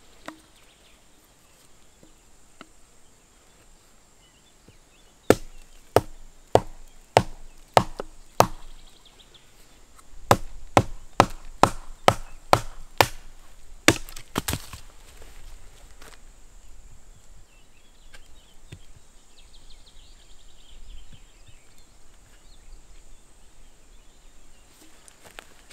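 Fiskars X7 hatchet chopping wood: a run of about six sharp blows, a short pause, then about eight more in quicker succession.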